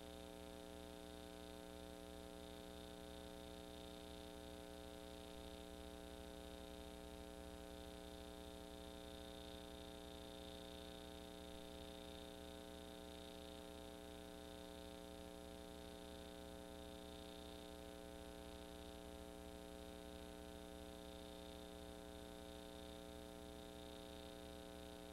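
Near silence: a steady electrical hum with a faint high hiss, and no sound from the scene itself.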